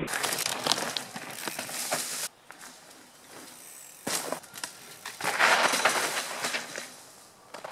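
Mountain bike tyres crunching over a dirt trail as the bike passes close by, with clicks and rattles from the bike. It cuts off suddenly after about two seconds. After a quieter stretch, a second crunching pass comes in about five seconds in.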